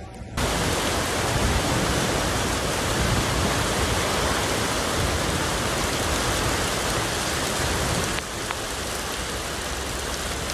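Steady, dense rushing of heavy rain and fast-flowing floodwater, starting abruptly about half a second in. It drops slightly in level about eight seconds in.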